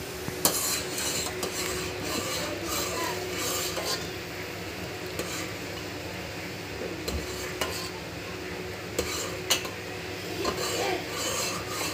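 A metal ladle stirring milk and sugar as it heats in a metal pan, scraping and now and then clinking sharply against the pan's side.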